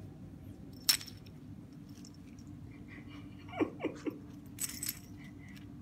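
A cat chewing and gnawing at a small catnip toy, with a sharp click about a second in and three short, falling chirp-like cat sounds past the middle, over a faint steady hum.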